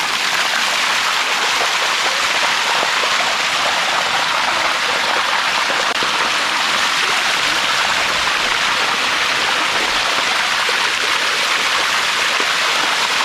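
Water of the Bua Tong waterfall cascading over its limestone steps: a steady, even rush of falling and running water.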